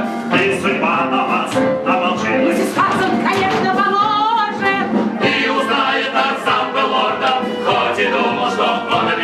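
Several voices singing together in a stage-musical number over backing music with a percussive beat; about four seconds in, a held note with a wide vibrato.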